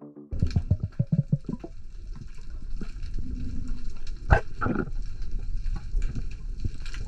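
Underwater sound picked up by a submerged camera: a steady low rumble with scattered crackling and bubbling, and two louder gurgles of bubbles a little after four seconds in.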